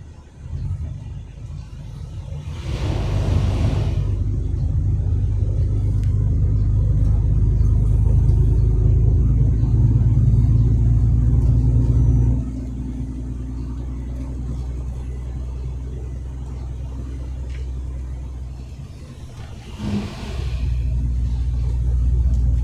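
Truck engine droning low and steady. About twelve seconds in the drone steps down quieter, and it rises again near the end. Two brief rushing hisses come a few seconds in and near the end.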